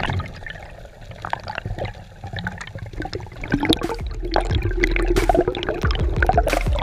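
Water sloshing and bubbling around an underwater camera, with many small clicks and knocks. A low steady hum comes in about halfway.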